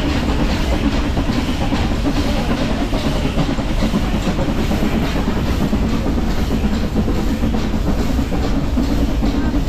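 Nilgiri Mountain Railway train running on the track, its wheels and coaches clattering steadily over a constant low drone.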